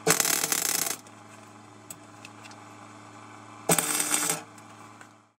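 Gasless (flux-core) MIG welder arc crackling in two short welds, the first nearly a second long and the second under a second, joining small steel parts. A steady low hum sounds between them.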